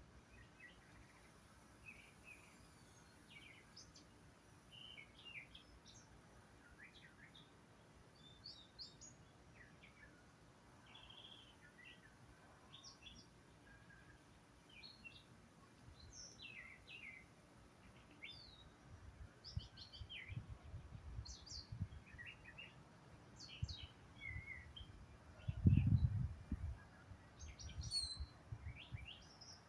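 Wild songbirds chirping and calling with many short, high notes scattered throughout. A low rumble rises over the last third, loudest in a brief burst near the end.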